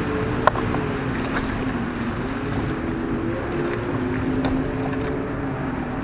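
A motor running steadily, its hum slowly wandering in pitch, over a windy, watery background; a single sharp click sounds about half a second in.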